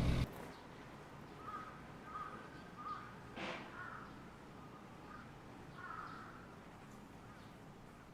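Crows cawing faintly, a run of about six short caws under a second apart over a steady hiss. A single sharp click about three and a half seconds in, and a louder noise that cuts off abruptly at the very start.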